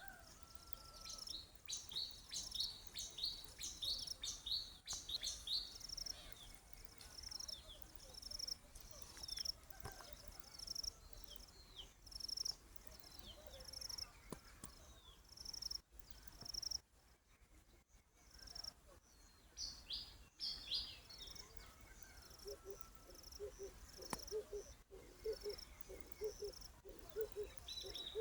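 Wild birds calling: many short, high-pitched chirps and tweets repeated throughout. About 24 seconds in, a lower, evenly repeated call joins them.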